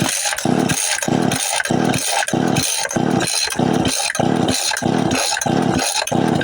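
Small old McCulloch chainsaw being cranked on its pull starter in quick, repeated pulls, about two a second, the engine turning over without catching: it has no spark.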